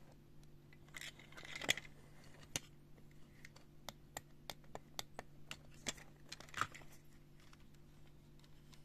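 Light clicks, taps and short scrapes from a die-cast metal toy steam locomotive being turned over in the hand, its spoked wheels and side rods clicking. The louder scrapes come about two seconds in and near seven seconds, over a faint steady low hum.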